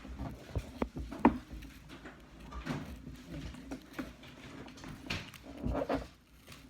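Handling of paper craft materials on a table: scattered light taps, clicks and rustles, with one sharper click about a second in.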